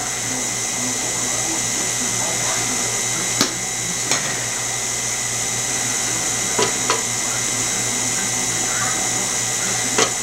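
KitchenAid stand mixer running steadily, its motor humming as the beater turns through chocolate cake batter in a steel bowl. A few sharp clicks come over the hum.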